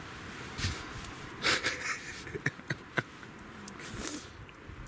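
Wood campfire crackling, with a few sharp pops and knocks about a second and a half to three seconds in.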